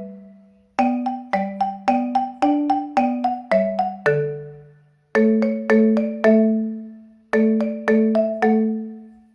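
Background music: a light tune of struck notes that each ring and fade, about two notes a second, played in short phrases with brief pauses about a second in, about five seconds in and about seven seconds in.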